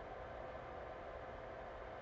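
Quiet room tone: a faint, even hiss with a steady low hum and no distinct events.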